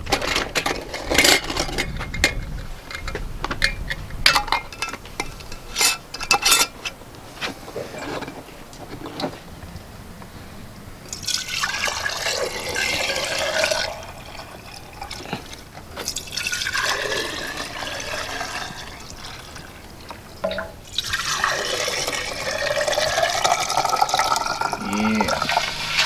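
Hot rendered lard poured from a stainless steel pot through a plastic canning funnel into a glass jar, in three long pours, with the pitch rising as the jar fills. Before the pouring, a run of sharp clicks and knocks.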